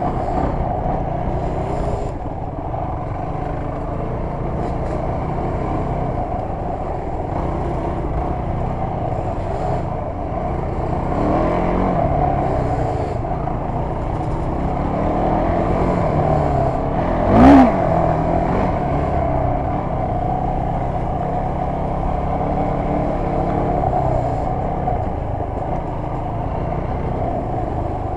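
Off-road vehicle engine running under load on a trail ride, its pitch rising and falling with the throttle, with one brief, sharp rev about two-thirds of the way in as the loudest moment.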